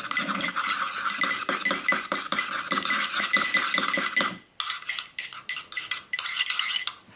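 A mixing tool stirring and scraping through slime base in a bowl, with rapid clicks and scrapes against the bowl. The stirring stops a little over four seconds in, leaving a few scattered knocks.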